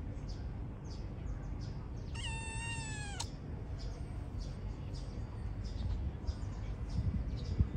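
Kitten meowing once, about two seconds in: a single high call lasting about a second that drops in pitch at the end. A steady low rumble and scattered faint ticks run underneath.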